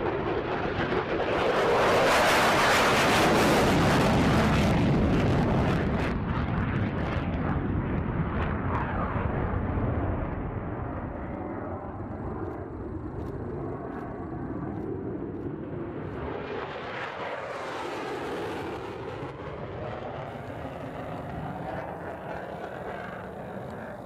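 Mirage-family delta-wing jet fighter taking off, its Atar turbojet running at full power. The noise is loudest in the first few seconds as the jet lifts off, eases as it climbs away, and swells again briefly about two-thirds of the way through.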